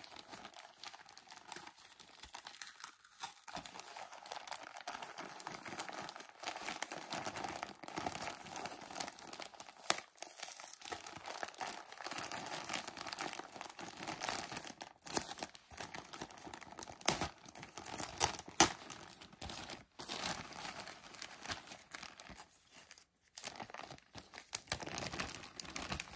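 Clear plastic bag crinkling and rustling as hands pull it open and handle it, with sharp crackles throughout.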